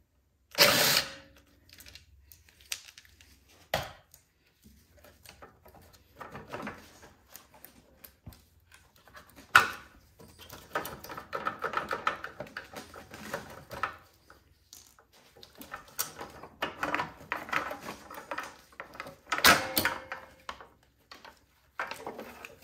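Hand tools and metal parts clicking, clinking and rattling as the carburetor mounting bolts are taken off a snowblower engine. A louder short burst of noise comes about a second in, and there are denser runs of rattling in the second half.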